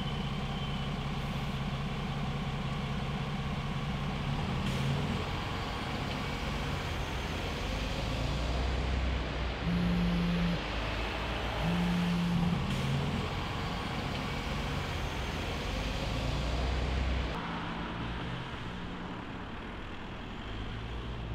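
City bus engine running with street traffic noise, a steady low hum. Two short, steady low tones sound about two seconds apart near the middle, and near the end the engine sound drops away, leaving quieter traffic.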